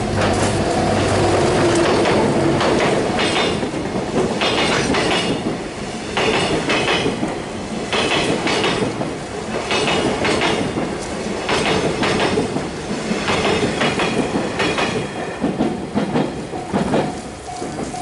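Freight train of container wagons passing close over a level crossing: a steady rumble with the wheels clacking over rail joints in regular groups about every second and a half. The crossing's warning bell rings out again near the end as the last wagons clear.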